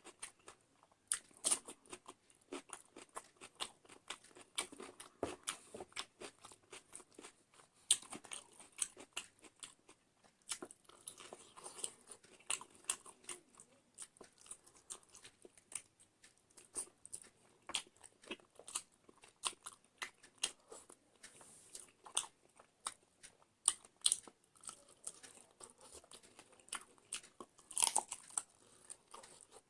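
A person chewing and biting food close to the microphone, with many irregular crisp crunches and wet mouth clicks.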